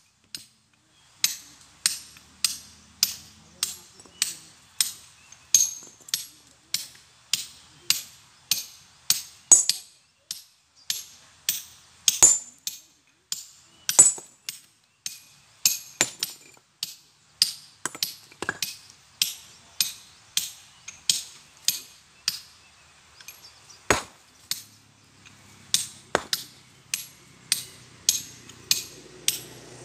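Hand stone-splitting: a hammer striking a steel chisel into a boulder in a steady run of sharp, ringing metal clinks, about two a second, starting about a second in. A few heavier, deeper sledgehammer blows on the rock stand out among them.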